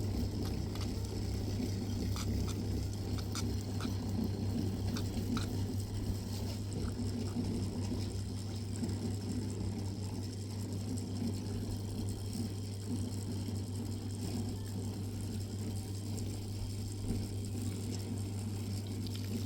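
A steady low hum with scattered faint light taps or ticks in the first half.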